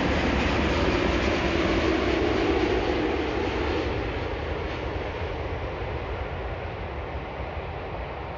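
Boeing 787 Dreamliner jet engines landing: a loud, steady rush of engine noise that fades gradually from about three seconds in as the airliner descends onto the runway and touches down.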